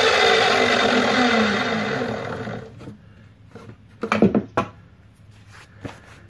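Electric miter saw's motor running after cutting a wooden board, its whine falling slightly in pitch as it winds down and fades out about three seconds in. A few short knocks follow as the board and saw are handled.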